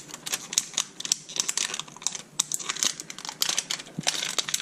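Wrapping layer of a toy capsule being pulled and torn off by hand, with rapid, irregular crinkling and crackling of the packaging.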